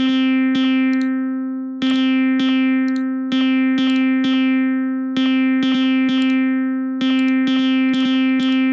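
Software synthesizer preset repeating one note near middle C, each note struck sharply and fading, in an uneven rhythm of about one to two strikes a second.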